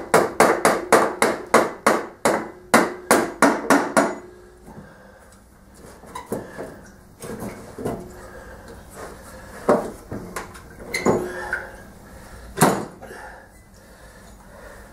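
Hammer tapping on metal: a quick run of sharp strikes, about four a second with a ringing note, for the first four seconds, then a few scattered knocks and clunks, one sharp knock near the end.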